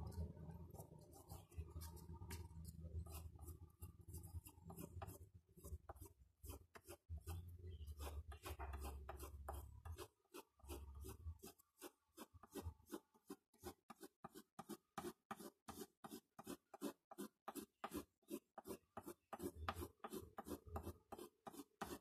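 Faint scratching of a pastel crayon rubbed across paper. The strokes turn into quick, regular back-and-forth strokes, about three a second, from about halfway through. A low hum sits under the first half.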